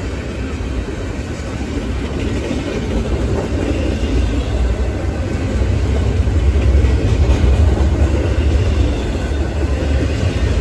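Double-stack intermodal freight train passing close by, its container-laden well cars making a steady low rumble of steel wheels on the rails, growing a little louder in the middle.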